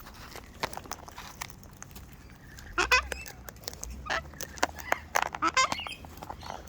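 Wild cockatoos making two short, harsh squawks, about three seconds in and again about five seconds in, among scattered sharp clicks and taps, typical of parrots crunching seed.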